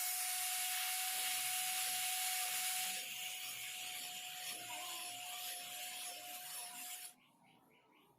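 Abrasive rust removal on an old pipe wrench: a steady rasping scrub with a thin steady whine under it. It is louder for the first few seconds, then softer, and cuts off suddenly about seven seconds in.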